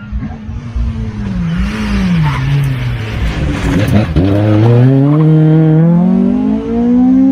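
Rally car engine coming up the road with the revs dipping and rising, passing close by about four seconds in, then revving steadily higher as it accelerates away.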